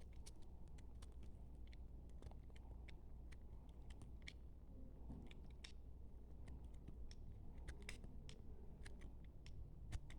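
Knife cutting through brittle microwaved soap: irregular crisp crackles and clicks, a few a second, with one sharper snap near the end.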